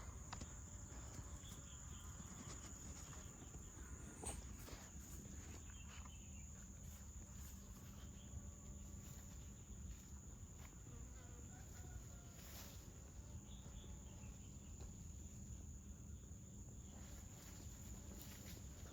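Insects trilling steadily, one faint high-pitched note, with a few soft ticks and rustles and a short knock about four seconds in.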